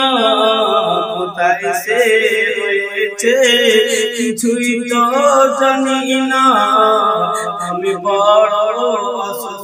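A man singing a Bengali gojol, an Islamic devotional song, solo, in long held notes that bend and waver in pitch, phrase after phrase.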